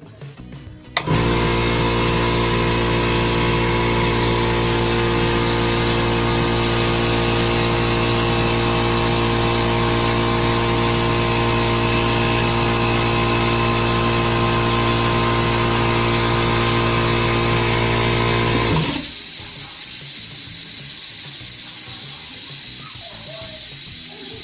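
Oil-lubricated air compressor given a short run so the oil circulates before an oil change. The motor and pump kick on about a second in and run steadily with a deep hum for about eighteen seconds, then shut off abruptly, leaving a quieter steady hiss.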